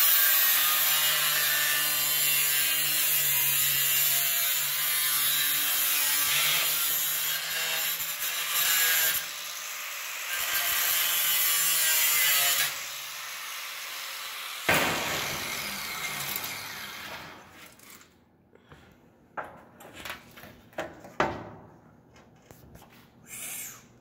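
A 4.5-inch angle grinder cutting the sheet steel of a Chevrolet pickup door: a loud, steady hiss of the disc in the metal over a low motor hum, with a short break about nine seconds in and stopping around thirteen seconds in. A sharp noise about fifteen seconds in fades over two seconds, then comes a scattering of light knocks and taps as the cut steel pieces are handled.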